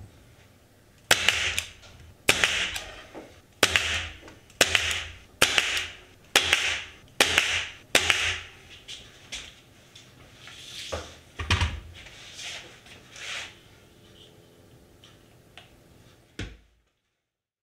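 Nail gun firing eight times, about a second apart, driving nails through a plywood top into the cabinet sides, each shot a sharp crack that fades quickly. Softer knocks and handling sounds follow.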